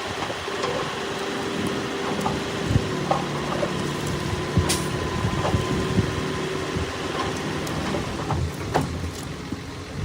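Heavy diesel construction machinery running steadily, with scattered metallic clanks and knocks over the engine drone, one sharper knock a little before the middle.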